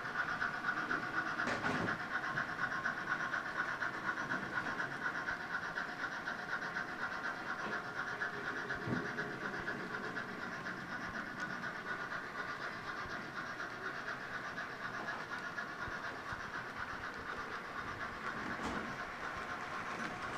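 Model freight train cars rolling past on the layout's track: a steady metallic whirr and rattle of the small wheels over the rails, with a fast fine clicking, easing off slightly toward the end as the last cars go by.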